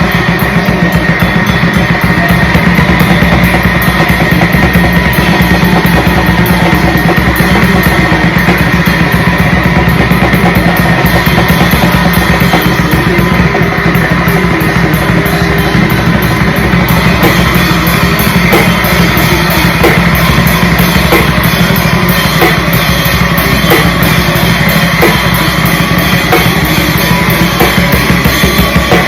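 Noisegrind: a drum kit playing very fast blast beats under a loud, unbroken wall of harsh distorted noise.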